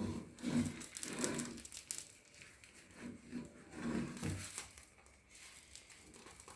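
Faint crinkling and tearing of plastic wrapping, in short bursts, as sandwich cheese slices are unwrapped.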